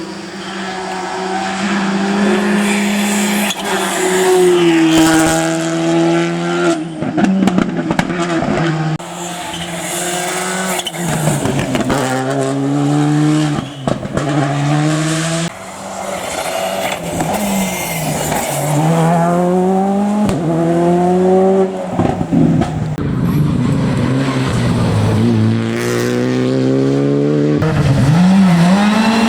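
Rally cars at full speed on a special stage, engines revving hard. The pitch climbs repeatedly and drops sharply at each gear change or lift, over several passes in a row.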